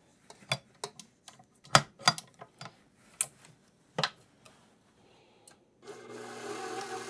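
Sharp metal clicks and knocks as the flat paddle beater is fitted onto the shaft of a KitchenAid stand mixer. About six seconds in, the mixer's motor starts and runs with a steady hum.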